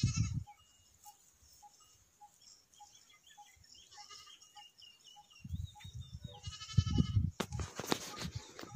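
Goats bleating: one call right at the start and another about six and a half seconds in. Low rumbling and a few sharp clicks come in around the second call.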